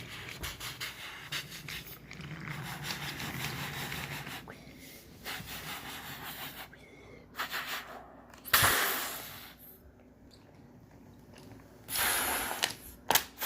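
Breathy, hissing vocal sound effects made with the mouth for crashing trains, with a sudden loud burst about two-thirds of the way through that fades over a second, and another near the end.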